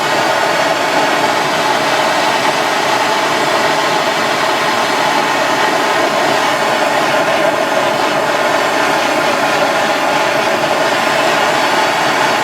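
Handheld torch flame running with a loud, steady hiss, heating a metal tool red hot; it starts suddenly and cuts off suddenly near the end.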